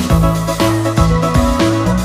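Electronic background music with a steady beat and a bass line.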